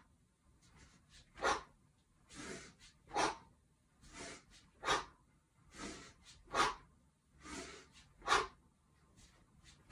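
A man's breathing during one-arm kettlebell swings with a 24 kg bell: five sharp, forceful exhales, one at the top of each swing about every 1.7 s, each followed by a softer, longer inhale as the bell swings back down.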